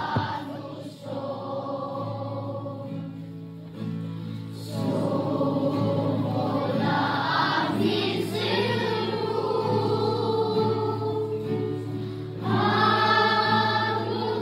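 A choir singing with music, several voices holding long notes together over a steady low tone; it grows louder about five seconds in and again near the end.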